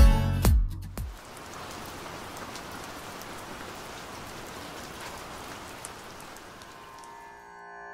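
Steady rain falling. A dance-music beat cuts off about a second in, and near the end the rain fades as soft held instrumental notes come in.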